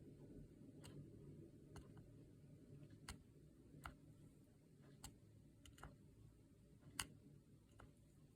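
Near silence: quiet room tone with faint, sharp ticks about once a second.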